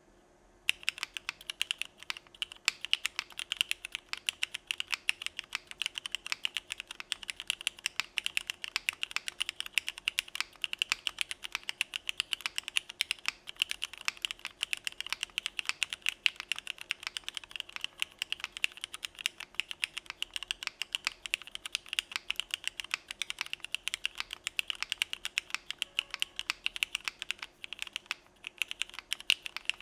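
Continuous fast typing on a Geonworks Frog mechanical keyboard with Cherry MX Black Clear Top (New Nixie) linear switches in an aluminium plate, with no foam or dampening: a dense run of keystroke clacks that starts about a second in.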